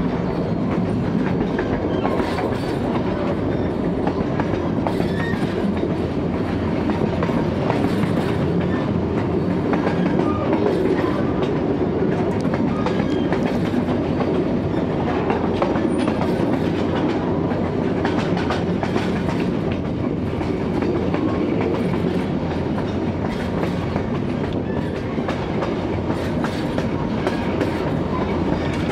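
Carriage of a 900 mm narrow-gauge electric train running slowly along the track: a steady rumble of wheels on rail, with frequent irregular clicks and rattles of wheels and bodywork, heard from the open end of the carriage.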